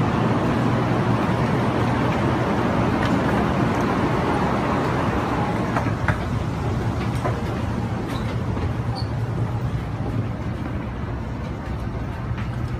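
Steady low rumble and hum of a vehicle in motion, growing slightly quieter in the second half.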